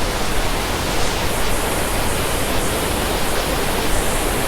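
Jonha Falls waterfall in full rainy-season flow: a loud, steady rush of falling water.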